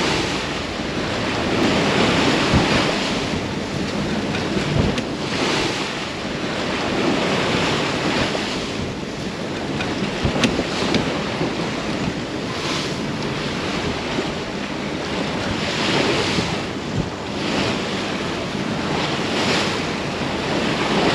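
Wind buffeting the microphone over the rush of sea water around a sailing yacht under way in a heavy swell. The wash surges every few seconds.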